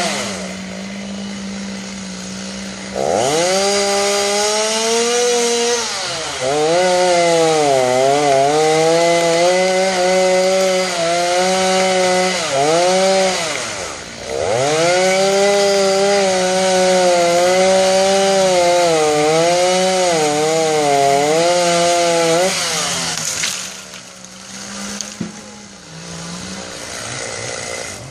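Two-stroke chainsaw idling, then revved up and cutting into a tree trunk in two long runs, its pitch sagging and recovering as the chain bites into the wood, before dropping back to idle near the end.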